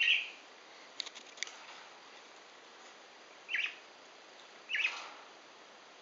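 Pet budgerigars in a wire cage giving three short chirps, spread over several seconds, with a couple of small clicks about a second in.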